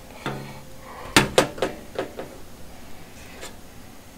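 A quick run of about five sharp clicks and knocks a little over a second in, then one softer tap near the end: a flashlight being handled and set down against plastic blister-packed lights on a tabletop.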